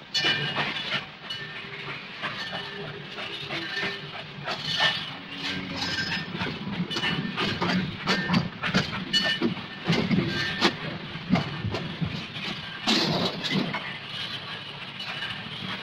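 Railway train running, a steady rumble with many irregular clattering clicks, heard on an old, worn television soundtrack.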